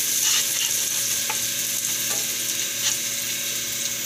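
Minced garlic sizzling in hot rendered pork fat in a wok, a steady hiss, with a few light scrapes of a wooden spatula stirring it as the garlic browns.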